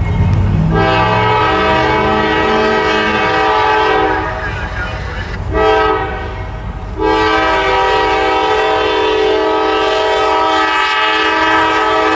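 Multi-chime air horn of a GE AC4400CW diesel locomotive, approaching a grade crossing: a long blast, a short one, then a long one. This is the close of the standard crossing signal. Diesel engine rumble and train noise run underneath, most noticeable in the first few seconds.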